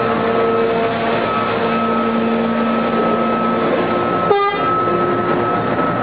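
Terex hydraulic mining shovel running steadily under load, a dense machine hum with several steady tones, broken by one brief sharp sound about four seconds in.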